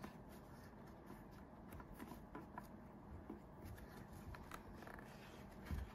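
Faint rustling and scattered small clicks of yarn being pulled through stitches with a crochet hook while making slip stitches.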